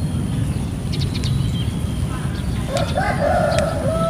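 A rooster crowing once, starting about two and a half seconds in and ending on a long held note, over a steady low background rumble.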